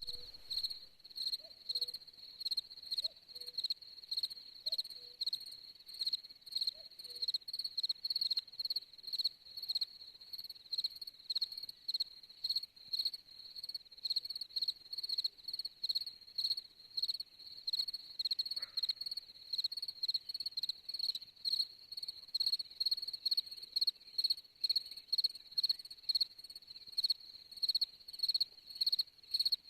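A cricket chirping steadily at night, a high-pitched trill in short, evenly spaced chirps. A few faint lower calls sound in the first several seconds.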